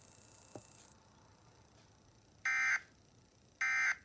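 Emergency Alert System end-of-message data bursts: two short, buzzy digital tone bursts about a second apart, coming in after a quiet stretch, signalling the end of the alert.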